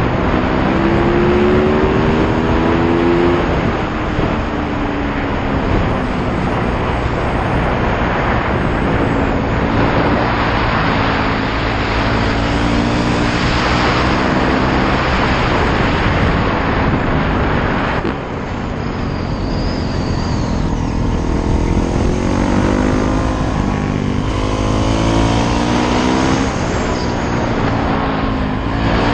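Yamaha YZ450F single-cylinder four-stroke dirt bike engine under way, its pitch climbing and dropping back several times as the rider accelerates and shifts, over heavy wind rush on the microphone.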